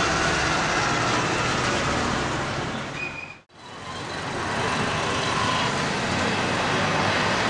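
Steady outdoor city background noise with distant road traffic, fading out to silence about three and a half seconds in and fading back up.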